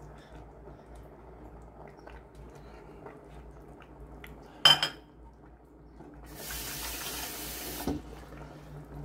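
A sharp clink of dishware about halfway through, then a tap running for about a second and a half, stopping suddenly with a knock. A low steady hum sits underneath.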